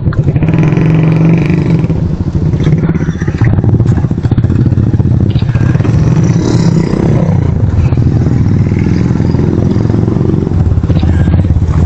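Motorcycle engine running steadily, its pitch shifting slightly about three and a half seconds in and again near the end.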